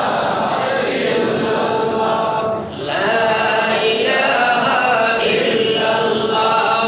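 A man's voice chanting in a drawn-out, melodic style, holding long notes, with a short pause for breath about three seconds in.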